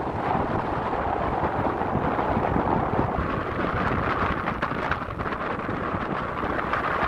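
Wind buffeting the microphone on the open deck of a moving CityCat catamaran ferry, over a steady rush of water and engine noise from the boat under way.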